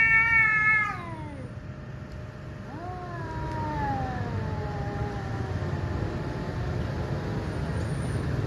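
Cats yowling at each other in a hostile standoff. A loud drawn-out yowl ends about a second in, then a long, lower, wavering yowl slowly falls in pitch.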